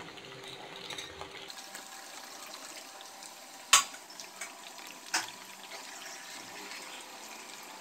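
Curry bubbling at a boil in a steel pan, a steady soft hiss of bubbling with two sharp clicks, a little past the middle and about a second and a half apart.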